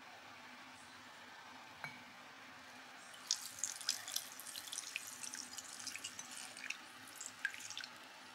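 Custard mixture of egg yolks, cream and milk poured through a fine-mesh metal sieve into a bowl: a liquid trickle with crackly spattering and bubbles popping, from about three seconds in until near the end. A single light knock comes about two seconds in.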